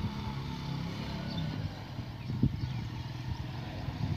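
A motorcycle engine running steadily at low revs, with a single knock about halfway through.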